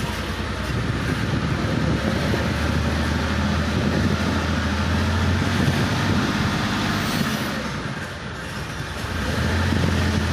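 An engine running with a steady low hum that swells twice, over a broad outdoor noise.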